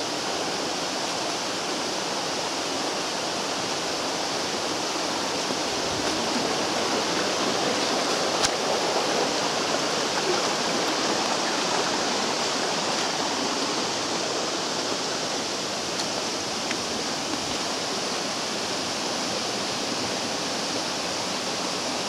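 Steady rush of water from a small mountain waterfall and stream splashing over rocks, swelling slightly in the middle.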